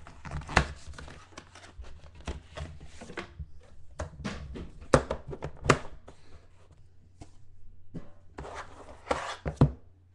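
Hands handling and opening a sealed trading-card box: a run of sharp taps and knocks with rustling of cardboard and wrapping. The loudest knocks come about half a second in, twice around five to six seconds, and just before the end.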